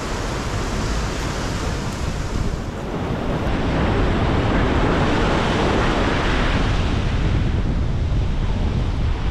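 Ocean surf breaking and foaming around wooden pier pilings, with wind rumbling on the microphone. The wash grows louder from about four seconds in.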